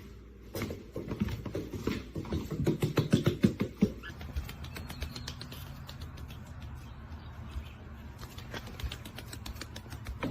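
Duckling's webbed feet pattering in quick, rapid steps: sharp, loud slaps on a hard floor for the first few seconds, then a quieter, softer patter on a different surface.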